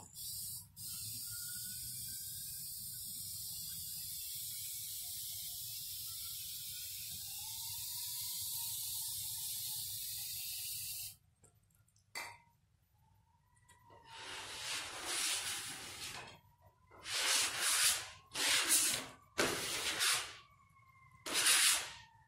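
Aerosol spray paint can spraying onto canvas: one long continuous hiss of about ten seconds that cuts off suddenly. After a short pause, several shorter sprays of a second or two each follow.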